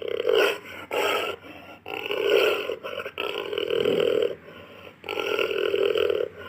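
Jaguar making a series of hoarse, rasping growls and grunts: about five calls, some short and some over a second long, with brief pauses between them.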